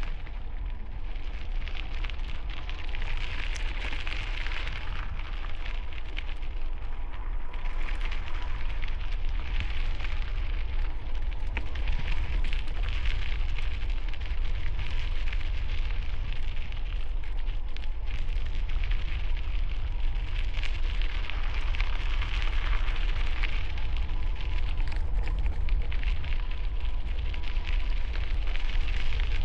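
Wind rumbling low on a helmet-mounted camera microphone while riding a bicycle on a forest trail, with a crackling hiss of tyres and gusts in the trees that swells and fades several times.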